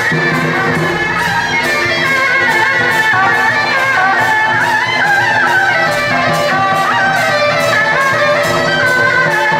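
Loud traditional procession music: a shrill reed-horn melody over a steady percussion beat.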